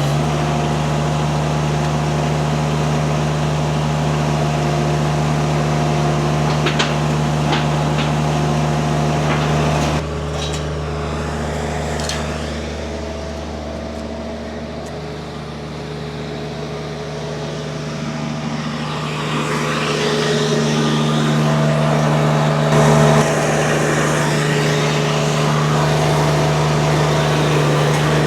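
Mini skid steer's engine running steadily. It drops in level about ten seconds in and comes back up around twenty seconds in. A few sharp clicks come around seven to eight seconds in.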